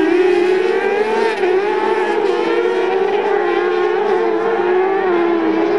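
A pack of autocross racing buggies accelerating off the start and racing together, their engines held at high revs in a steady, slightly wavering drone.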